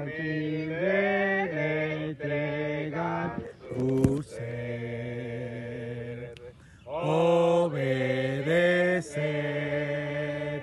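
Small group singing a Spanish hymn a cappella, holding long notes that change pitch every second or so, with a short pause a little past the middle. A single sharp click sounds about four seconds in.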